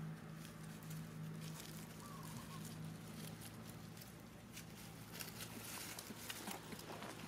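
Macaques scuffling and moving over dry leaf litter: rustling and crackling leaves, busier in the second half, over a steady low hum.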